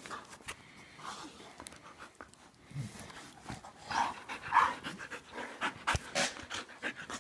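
Dogs at play, a blue-nose pit bull and a husky, panting and snuffling close to the microphone, with a louder stretch about four seconds in and a few sharp clicks.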